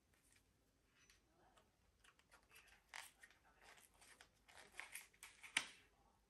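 Faint, irregular rustling and small clicks of packaging being handled and opened, starting about two seconds in, with the sharpest click near the end.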